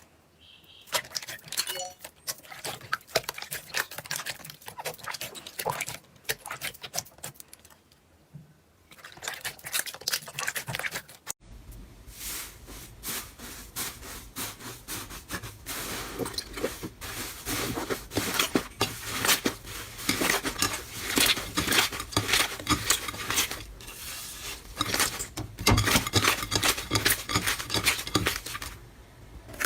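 Slime being squeezed and worked by hand, a dense run of small sticky clicks, crackles and pops. About eleven seconds in it switches to a louder, denser stretch of crackling over a low hum.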